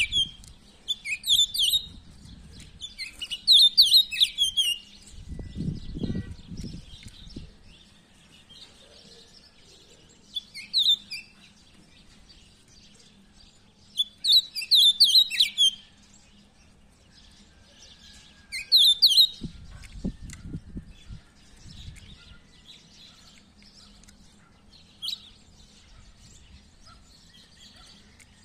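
Caged yellow-breasted, white-winged songbird singing short phrases of rapid, high chirping notes, separated by pauses of a few seconds; the last is a single note near the end.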